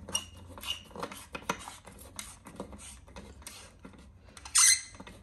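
Light clicks and scraping of electrical wires and tools being handled at a breaker panel during wiring, with one short, louder scrape about four and a half seconds in.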